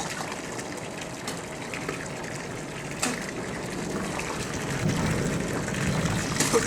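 Steady rush of running water, with one sharp click about three seconds in.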